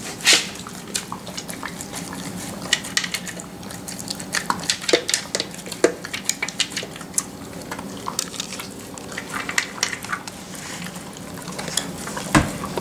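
A Doberman eating dry kibble from a plastic slow-feeder maze bowl: irregular clicks and rattles of pellets, teeth and muzzle against the plastic ridges, with one louder knock near the end.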